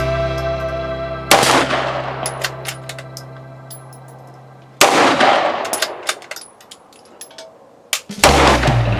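Three gunshots about three and a half seconds apart, each echoing and fading slowly, with light metallic clinks between them.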